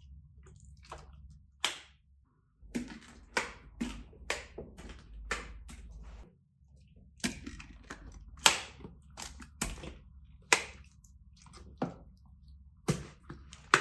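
Knife cutting through fruit onto a cutting board: a run of sharp, irregular knocks, roughly one a second, the loudest about eight and a half seconds in.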